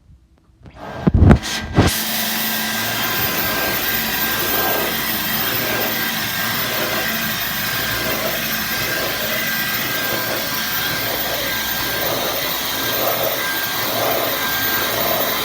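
Dyson V11 cordless stick vacuum starting up after a couple of knocks just after a second in, then its motor running steadily with a high whine, the sound swelling about once a second.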